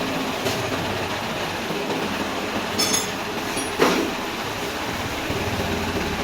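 Yamaha R15 V2S's single-cylinder engine running steadily, the engine noise that is taken for a problem. About three seconds in there is a short sharp metallic click, and just before four seconds a louder knock.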